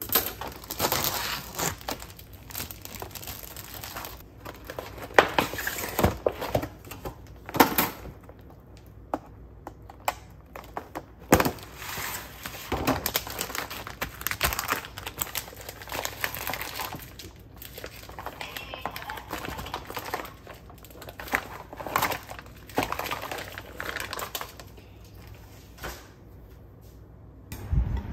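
Plastic food packaging crinkling and tearing as it is opened by hand: irregular rustles broken by sharp clicks and snaps.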